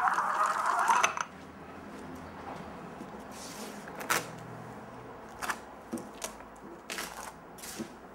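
A stiff stencil sheet being handled against a painted board: a louder scraping rustle in the first second, then scattered short rustles and a few sharp taps and clicks, the sharpest about four seconds in.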